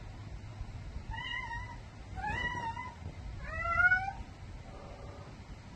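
Domestic cat meowing: three drawn-out meows about a second apart, the third rising in pitch and the loudest, then a faint fourth near the end.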